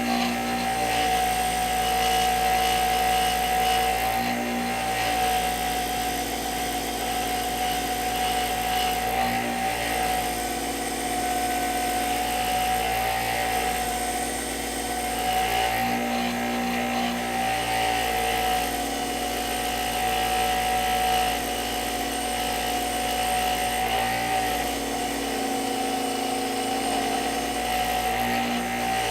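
Motor-driven wire wheel spinning with a steady whine that wavers slightly in pitch, brushing rust off the threads of brake caliper bolts.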